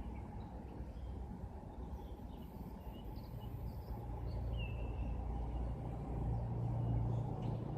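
Faint bird chirps over a steady low rumble, with a low hum that swells in the second half.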